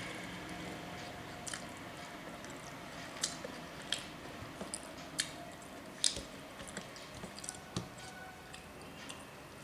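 Close-up eating sounds: soft wet squishes and scattered sharp clicks as fingers mix rice and fish curry on a steel plate and the mouth chews.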